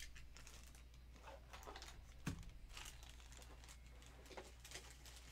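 Faint scattered rustling and light clicks of something being handled, with one sharper click a little over two seconds in.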